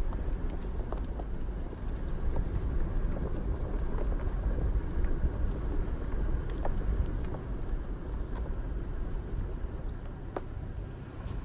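Toyota 4Runner rolling slowly down a rough dirt track, heard from inside the cab: a steady low rumble of engine and tyres, with scattered light ticks and clicks throughout.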